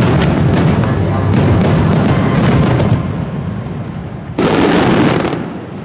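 Fireworks going off in rapid volleys of bangs and crackle for about three seconds, dying down, then a second loud burst about four and a half seconds in that fades away.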